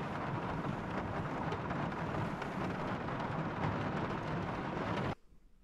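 Heavy rain drumming on the roof of a small car, heard from inside as a dense, steady hiss and patter that cuts off suddenly about five seconds in.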